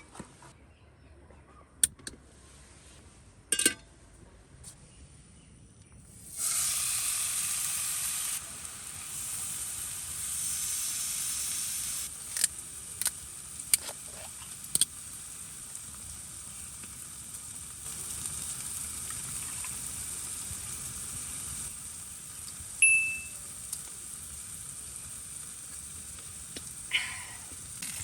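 Food sizzling in a hot pan, starting abruptly about six seconds in and running on steadily, with a few sharp utensil clicks along the way.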